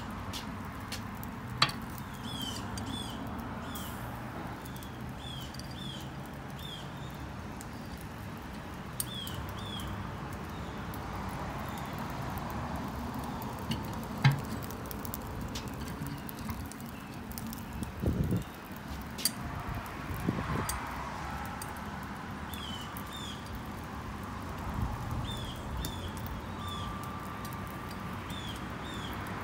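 Outdoor ambience with a bird chirping again and again in short runs of two or three notes. Now and then comes a sharp metal clink, loudest about two seconds in and again near the middle, as the meat hooks and hanger bars knock against the steel drum of a Pit Barrel Jr cooker while pork loins are lifted out.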